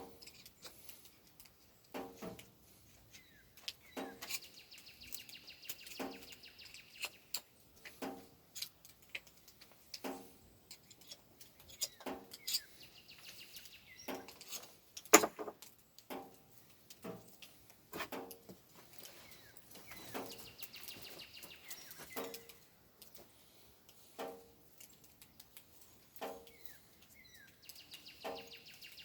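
Sharp knocks about every two seconds, one louder than the rest about fifteen seconds in, with birds chirping faintly between them.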